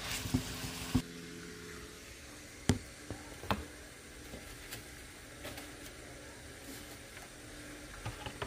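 A wooden spoon stirs ground beef and onions frying in a metal pot, with a light sizzle, for about the first second. Then it is quiet except for a faint steady hum and a few scattered light knocks and clicks.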